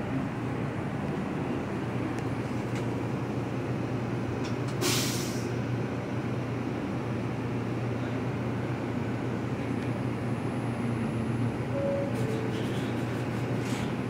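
R142 subway train standing at the platform, humming steadily, with a short hiss of released air about five seconds in and a few faint clicks near the end.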